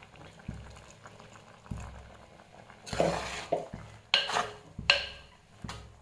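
A steel ladle stirring and scraping through thick papaya curry in a clay pot, with five loud scrapes in the second half. Before that, the thick curry simmers with low plops about once a second.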